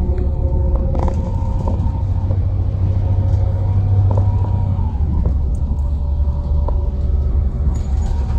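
Steady engine rumble and drone of a moving vehicle, with a few steady whining tones above it and occasional light clicks and rattles.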